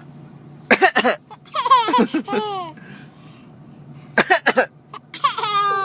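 A small child coughing in two short runs of quick coughs, each run followed by a high-pitched, sliding laugh.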